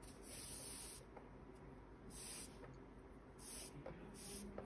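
Cotton cord being drawn through crochet stitches: four soft, faint swishing rubs, each under a second long.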